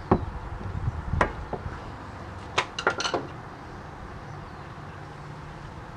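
Hand work at a BMW E46 rear disc brake caliper: a few light metallic clicks and clinks during the first three seconds, the last ones in a quick cluster, as the pad and its wear sensor are handled and seated. Then only a faint steady background.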